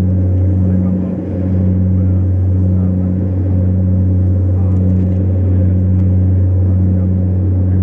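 Jet airliner's rear-mounted turbofan engines heard from inside the cabin during the climb after takeoff: a loud, steady, low drone with a slow throb about once a second.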